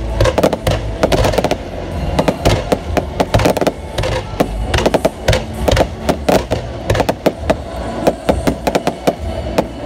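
Fireworks going off in a rapid, irregular volley of sharp bangs and cracks over a steady low rumble.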